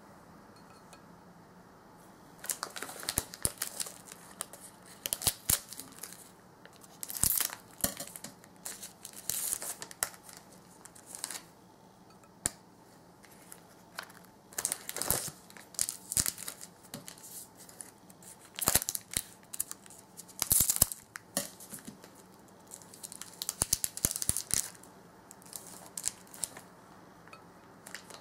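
Thin plastic snack bag crinkling and rustling in irregular bursts of crackles as hands reach in and pull out chocolate-coated corn snack sticks, starting about two seconds in.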